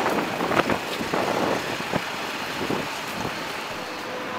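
Busy city street noise at a crosswalk: traffic running and pedestrians passing, with a few short knocks in the first half.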